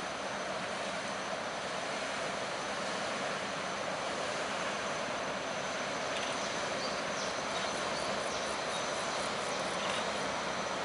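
Inland cargo barge's diesel engine running steadily as the loaded vessel passes, a constant drone without change in level.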